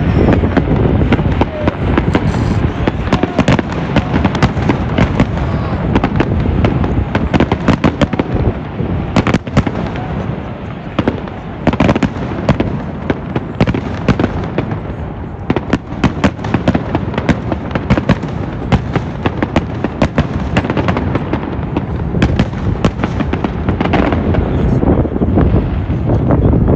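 Fireworks display: a dense, continuous barrage of bangs and crackling, many reports a second, with sharper loud bangs scattered throughout.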